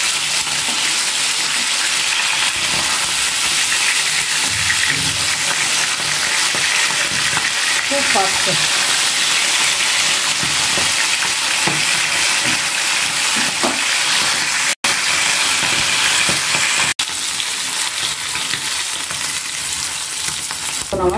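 Pomfret fish frying in hot mustard oil in a non-stick pan: a steady, loud sizzle while a spatula turns the pieces. The sizzle cuts out for an instant twice, about fifteen and seventeen seconds in.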